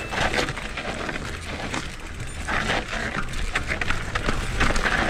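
Mountain bike rolling down a steep, rough trail: tyres crunching over dirt and rocks with irregular clattering knocks from the bike over the bumps, getting louder about halfway through.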